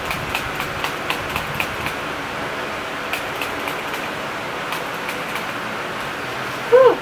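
Electric fan running with a steady whir and a rapid, even ticking, about four ticks a second, that thins out after about two seconds. Near the end comes a short, loud sound falling in pitch.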